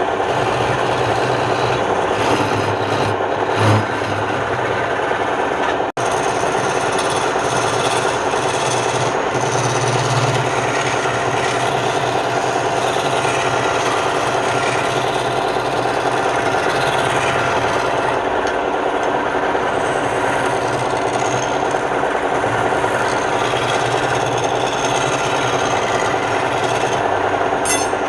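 Wood lathe running with a turning tool cutting the spinning wood, a steady grinding noise that cuts out for an instant about six seconds in.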